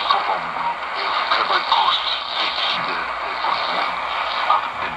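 Shortwave AM broadcast of Vatican Radio on 9705 kHz coming through a Degen DE1106 portable receiver's small speaker: a voice over steady static hiss, its sound narrow and thin.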